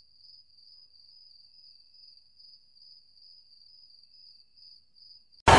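A faint, steady high-pitched whine with a slight regular waver. Loud music cuts in near the end.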